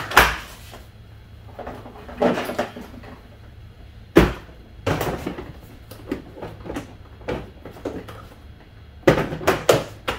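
Hard plastic knocks and clicks of Milwaukee Packout cases being set onto a stacked tool cart and locked on, with a sharp click about four seconds in and a quick run of clicks near the end.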